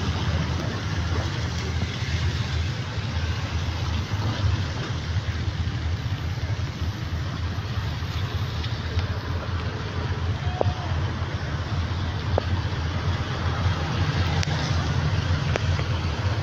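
Steady rain with traffic on a wet street: an even hiss over a low rumble, with a few sharp ticks in the second half.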